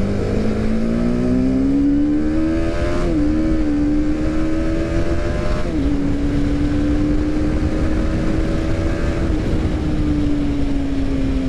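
TVS Apache RR310's single-cylinder engine pulling under acceleration, with upshifts about three and six seconds in, then holding a steady cruise and easing off near the end, over wind rush on the microphone.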